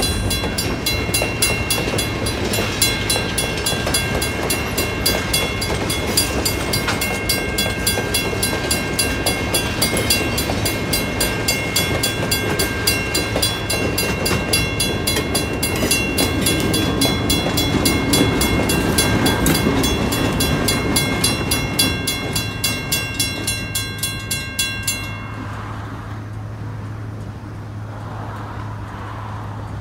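A railroad crossing bell rings in rapid repeated dings while excursion-train passenger cars roll past, with wheels rumbling and clattering on the rail and a steady low hum underneath. The bell stops suddenly a few seconds before the end, as the last car clears and the crossing gates start to rise.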